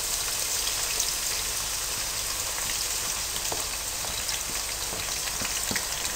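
Chopped green onions frying in hot vegetable oil: a steady sizzling hiss with scattered small crackles.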